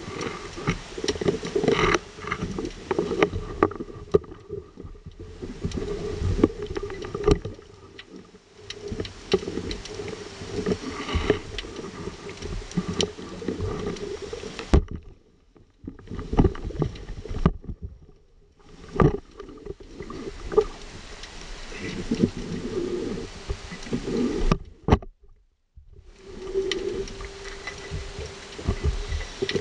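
Muffled water sloshing and bubbling heard through an underwater camera housing, with frequent irregular knocks and clicks as the housing moves in the water. The sound cuts out suddenly for a moment a few times.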